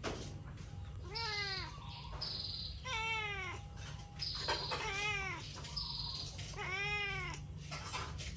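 A young white-and-tabby cat meowing four times, about every two seconds, each meow rising then falling in pitch, as a hungry cat begs for food.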